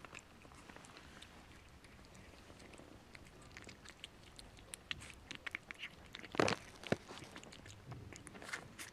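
Chihuahua puppy eating chunks of food from a plate: small wet chewing and smacking clicks, sparse at first and quick and busy from about halfway, with one louder smack a little over six seconds in.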